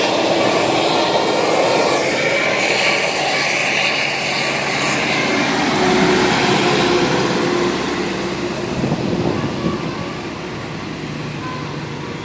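Engine and road noise of a passing bus, loud and steady, then gradually fading over the last few seconds.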